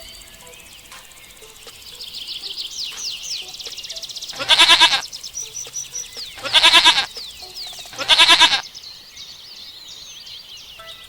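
Goat bleating three times, each bleat about half a second long and wavering, over a background of rapid high bird chirps.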